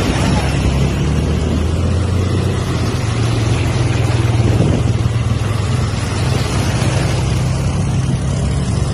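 ATV engines running steadily as the quad bikes drive through a shallow river, with water splashing around the wheels.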